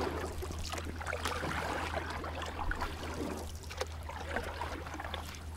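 Lakeside ambience: faint water lapping with small scattered splashes, over a steady low hum.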